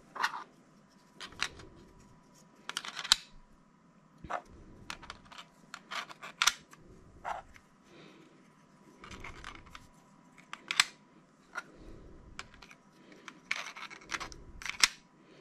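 3D-printed PLA plastic parts being handled and fitted together: irregular sharp clicks, taps and short scrapes of hard plastic, with quieter handling noise between.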